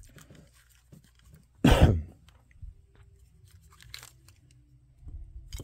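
Faint clicks and small handling noises of plastic action-figure parts being moved on a workbench, with one short loud noise a little under two seconds in.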